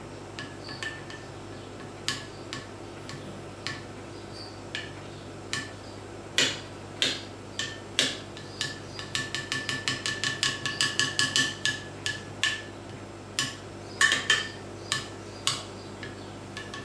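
Cutlery clinking against a small glass bowl while stirring pepper paste to dissolve it in olive oil, lemon juice and pomegranate molasses. The clinks are scattered at first, then quicken to a fast run of about four or five a second around the middle, with another short cluster near the end.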